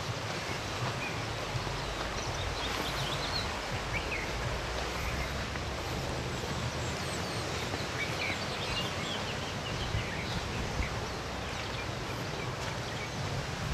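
Steady outdoor background noise with wind buffeting the microphone, and faint short bird chirps now and then.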